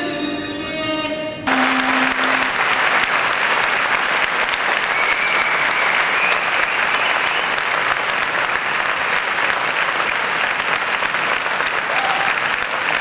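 A sustained final chord of live music cuts off sharply about a second and a half in, and a large concert audience breaks into steady applause, with a few cheers among the clapping.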